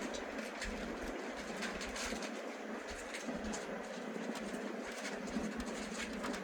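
Passenger train running, heard from inside the carriage: a steady rumble and rushing noise with light, irregular ticks.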